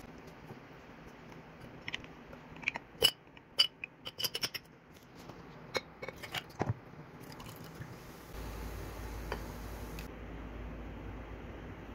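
Ice cubes dropped into a glass jar, a quick run of sharp clinks, then Vimto cordial poured over the ice. From about eight seconds comes a steady fizzing hiss of carbonated soda in the jar.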